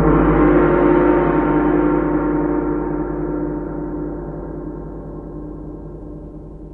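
One deep struck hit ringing out, many steady tones fading slowly and evenly, loudest at the start.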